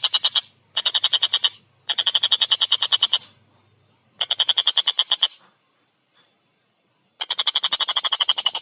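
Collared kingfisher (tengkek buto) giving its rapid, harsh 'kek-kek-kek' call, about ten notes a second, in several bursts of half a second to a second and a half. A pause of about two seconds comes in the middle, and the calling resumes near the end.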